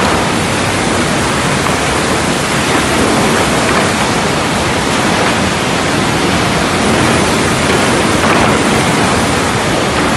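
A Thomson sawmill running: a loud, steady rushing noise with no distinct tones, rhythm or breaks.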